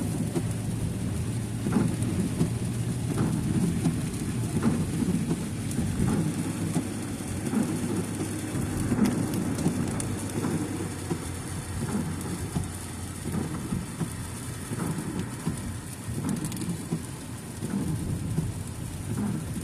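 A car driving in the rain: a steady low rumble of road and engine, with rain hitting the car and a few faint taps.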